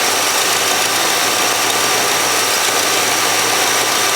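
Pontiac 389 V8 idling cold, heard up close at the exhaust manifold-to-downpipe flange as a steady noisy rush. Exhaust is leaking at the flange because the doughnut gasket is missing.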